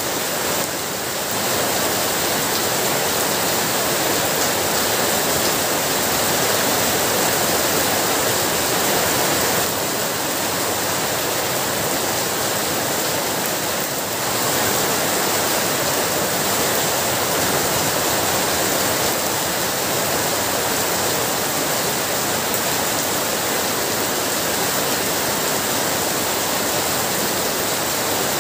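Heavy rain falling steadily: a loud, dense, even hiss of water.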